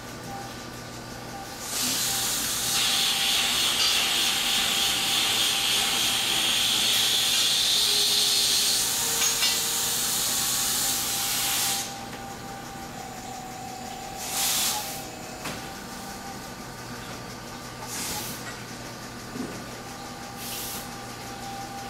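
Milking-robot equipment in a dairy barn: a loud, steady hiss starts about two seconds in and cuts off after about ten seconds, followed by three short hisses, all over a constant mechanical hum.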